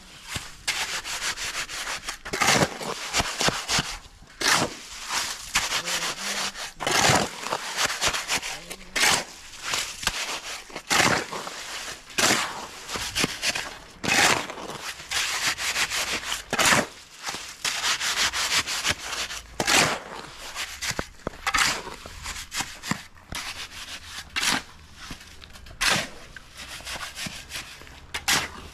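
A steel shovel scraping along hard ground as it turns a wet sand-and-cement mortar mix by hand. It makes repeated gritty scraping strokes, about one every two seconds.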